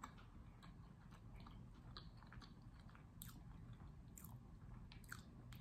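Faint chewing of a bite of chocolate Oreo cookie with the mouth closed: soft wet mouth clicks and smacks every so often, a few slightly louder ones about three to five seconds in.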